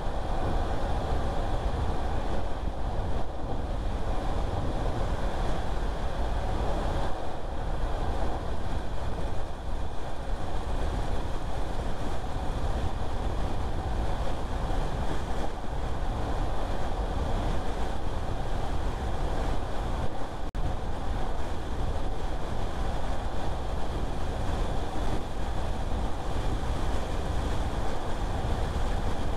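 Steady road noise of a car driving: low tyre rumble and wind noise with a faint engine hum. There is a brief dropout with a click about twenty seconds in.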